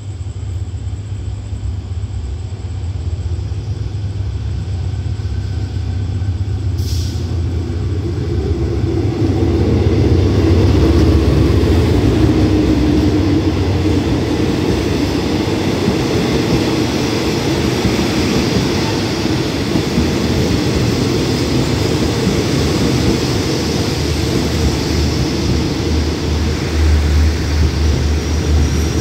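Diesel-electric locomotive GEA 4553 bringing an express passenger train into the station. Its low engine drone grows louder as it approaches, then steel wheels run along the rails as the locomotive and carriages pass, pulling in to stop.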